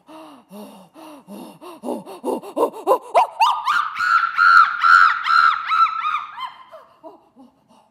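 A woman's vocal imitation of a chimpanzee pant hoot. Panting calls at about four a second grow louder, faster and higher in pitch through the buildup. About three seconds in they break into loud, high screaming hoots, which then fall away in the let-down near the end.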